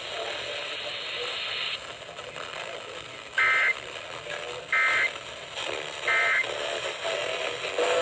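Three short bursts of EAS SAME header data, a warbling two-tone digital screech, play from FM station WLTF 97.5 through the speaker of a Midland ER310 emergency radio. They come about a second and a half apart, starting a few seconds in. They open the Emergency Alert System relay of a severe thunderstorm warning.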